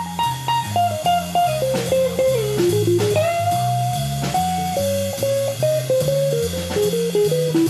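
Small jazz band playing: an archtop electric guitar picks a single-note melody that steps down in pitch and climbs back, over a low bass line moving note by note and a drum kit keeping time.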